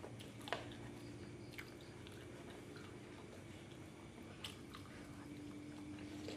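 Quiet sounds of eating with the hands from a paper-and-banana-leaf food wrap: a few faint clicks and rustles, over a faint steady hum.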